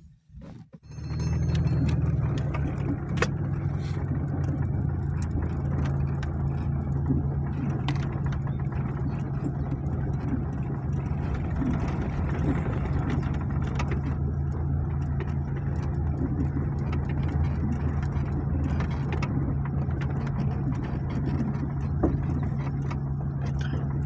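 Car engine running steadily, heard from inside the cabin while driving on a dirt track, with a few short knocks and rattles. The engine sound rises sharply about a second in, then holds.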